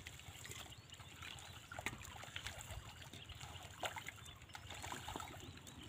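Faint splashing and squelching of hands groping through shallow muddy water and mud for fish, with sharper splashes about two and four seconds in.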